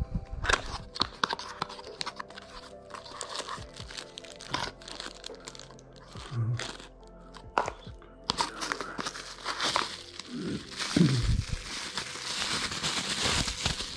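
Plastic packaging and bubble wrap crinkling and rustling in the hands, with small sharp crackles as a cardboard box is opened; the crinkling is denser in the second half. Background music plays underneath.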